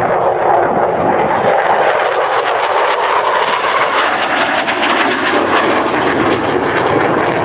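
Loud jet engine noise of a USAF F-16 fighter in flight, steady throughout, with a rapid crackle running through the middle of it.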